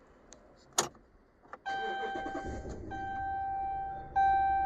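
A few clicks, then a steady electronic chime tone from the 2012 Dodge Ram's dash. About two and a half seconds in, the truck's engine starts and runs at idle with a low steady rumble under the tone, showing the newly programmed proximity key works.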